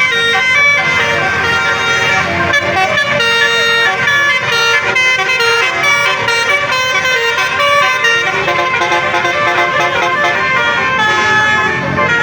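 A bus's Basuri telolet horn, a multi-tone electric air horn, playing a melody. Its notes step quickly from one pitch to the next without pause.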